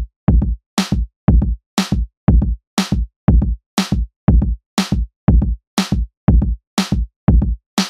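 Background music with a steady electronic beat of about two hits a second. Every hit has a deep bass thump, and every other hit carries a sharper, brighter crack.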